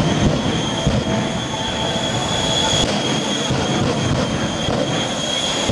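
Shockwave jet truck's three Westinghouse J34 jet engines running while the truck stands still with flames burning from its stacks: a steady jet roar with a high, steady whine.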